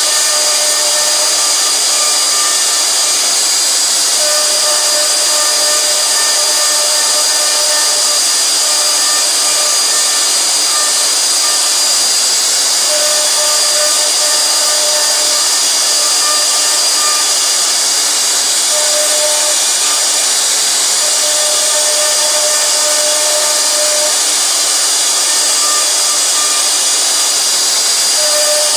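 CNC router spindle running with a steady high whine as its bit carves letters into a wooden board, over an even cutting noise. A lower tone comes and goes every few seconds as the machine moves.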